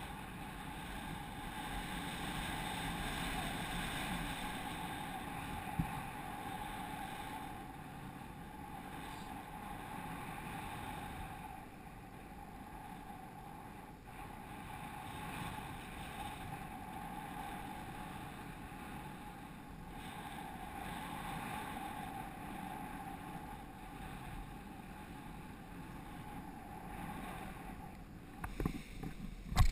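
Airflow rushing over a paraglider's harness-mounted camera during the final glide, a steady rush with a faint hum in it. Near the end, a few sharp thumps as the pilot touches down on the grass.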